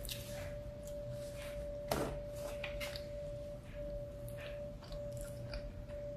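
Mouth sounds of a person eating: chewing and lip smacks, one sharper smack about two seconds in, and a finger licked a little later, over a steady high hum.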